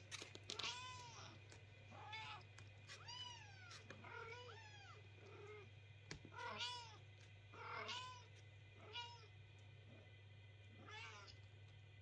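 Kittens meowing, about ten short cries that rise and fall in pitch, some coming in quick pairs, over a low steady hum.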